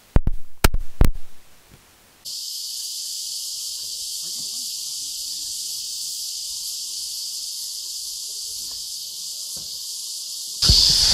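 A few loud, sharp knocks in the first second. Then, from about two seconds in, a steady, high-pitched drone of insects that begins abruptly and grows louder near the end.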